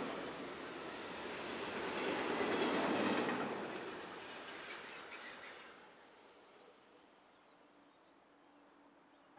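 Freight train wagons rolling past on the rails, swelling about two to three seconds in, then fading away with a few sharp clacks as the end of the train goes by.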